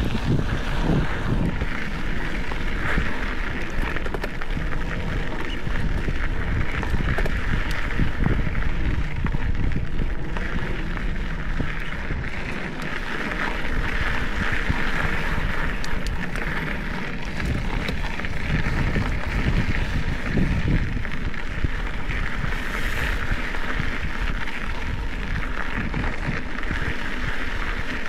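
Wind buffeting the microphone over the steady crunch and rattle of a Specialized Epic 8 EVO mountain bike's tyres rolling on a dry dirt singletrack, with a constant patter of small ticks from grit and the bike's chatter.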